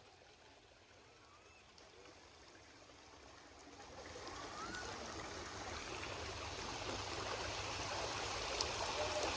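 Steady rush of running water, faint at first and growing louder over the first few seconds, then holding steady.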